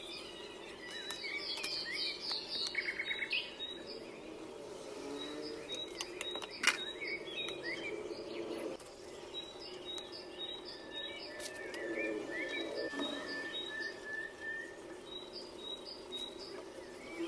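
Birds chirping again and again in short calls over a steady low hum, with one sharp click about six and a half seconds in.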